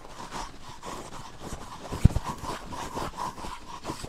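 Metal curry comb scraping over a horse's coat in repeated short strokes, with one sharp low thump about two seconds in.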